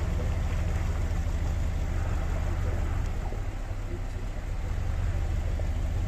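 Heavy diesel engine of a UD Nissan concrete pump truck running with a steady low rumble as the truck creeps downhill on a dirt track; it dips briefly about four seconds in.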